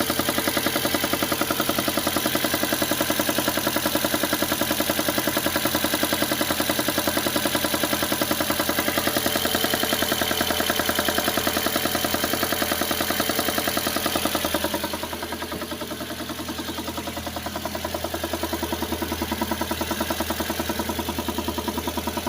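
VAZ (Lada) car engine idling with a steady, rhythmic knocking, a knock that the owner says is there while the engine is cold and goes away once it warms to about 50°. About fifteen seconds in the sound turns quieter and duller.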